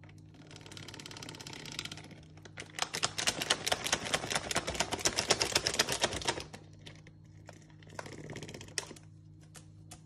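A crinkly cereal packet rustling and crackling as a lory digs inside it with its beak. A soft rustle builds into a fast, dense run of crackles from about three to six seconds in, then it settles to a few scattered ticks.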